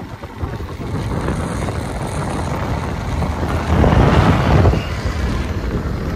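Motorcycle riding at road speed: wind rushing over the microphone over the engine and tyre noise. It swells for about a second, about four seconds in.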